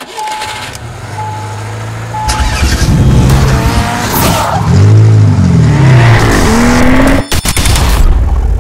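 Intro sound effect of a car engine revving up and down several times. It opens with three short beeps about a second apart and has a few sharp clicks about seven seconds in.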